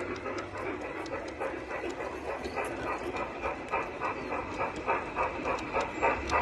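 Garden-scale model steam train running along its track with a steady rhythmic chuffing of about four to five beats a second.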